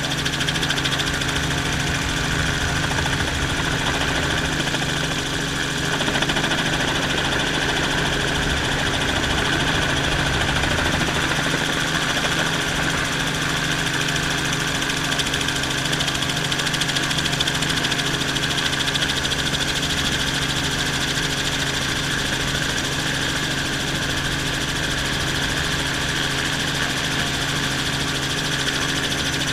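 Helicopter cabin noise: the engine and rotor running steadily, a constant drone with several humming tones, a little louder from about six seconds in.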